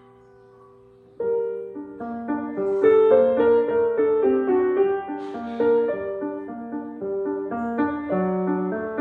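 Grand piano being played: a held chord fades away, then about a second in a quick, busy passage of notes starts and carries on.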